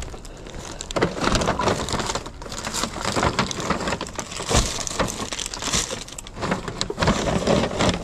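Plastic bags and a mesh produce bag rustling and crinkling as they are grabbed and shifted, full of small crackles and clicks.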